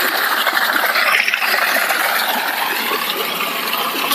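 Steady rush of water gushing from the 1.5-inch outlet of a running jet175 modified electric water pump (175 W).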